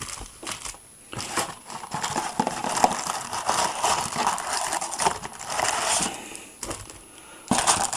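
Foil trading-card booster packs crinkling and rustling as a handful is pulled out of a cardboard display box, with small clicks and knocks against the box; it starts about a second in and dies down shortly before the end.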